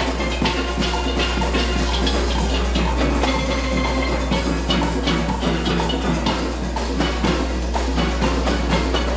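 A full steel orchestra playing: many steelpans struck together over drum and percussion rhythm, in a steady, fast-moving pulse.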